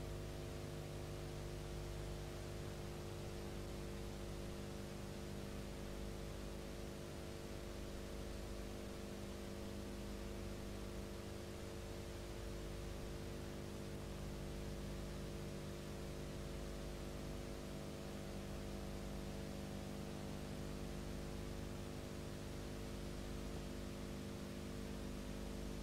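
Steady electrical hum with a constant hiss and nothing else: the noise of a silent film's transfer, with no soundtrack of its own.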